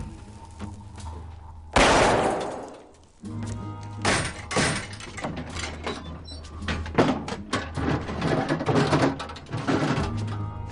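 A loud explosion about two seconds in, bursting suddenly and fading away over about a second and a half, followed by dramatic film score music with many heavy percussive hits.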